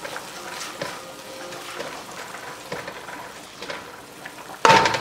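Garlic and butter sizzling in a frying pan, stirred with a silicone spoon that scrapes lightly now and then. Near the end there is a sudden loud clatter with a brief ring.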